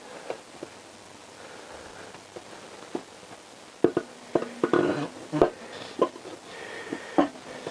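Light metallic clicks and knocks from a Honda CBR1000F cylinder head being worked down over the studs and dowels onto its four-cylinder block. A few ticks come at first, then a busier run of clicks and knocks about four seconds in.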